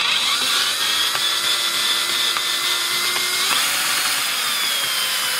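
Cordless drill-driver running slowly in reverse, backing a stripped screw out of timber, with PTFE tape between the bit and the screw head giving the bit enough grip to turn it. A steady motor whine that shifts slightly in pitch about three and a half seconds in.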